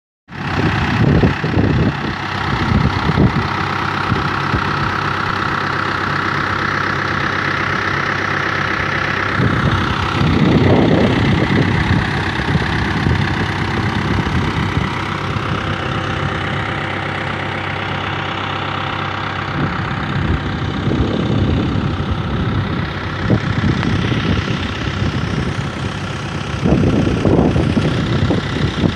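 Tümosan 8095 tractor's diesel engine running steadily, driving an irrigation pump through a large hose, with a few irregular low rumbling surges.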